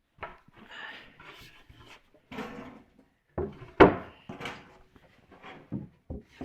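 Wooden knocks and scrapes as the plywood top of a miter saw station is handled and set in place, with one sharp, loud knock about four seconds in.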